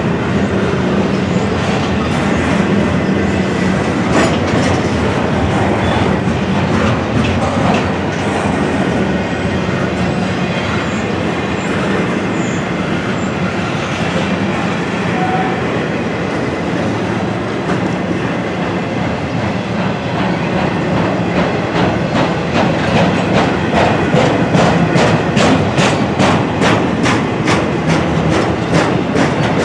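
Freight cars of an auto rack and intermodal train rolling steadily past, wheels clicking over rail joints, the clicking growing louder and more rapid near the end.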